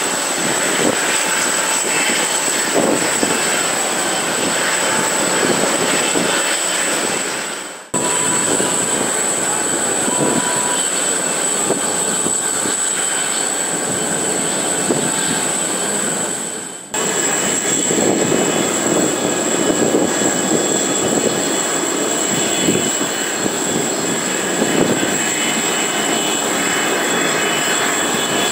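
Boeing 777-200LR's GE90 turbofan engines running steadily at low power as the airliner rolls out and taxis after landing, with a thin steady high tone over the rumble. The sound fades and cuts back in abruptly twice, about a third and about two-thirds of the way through.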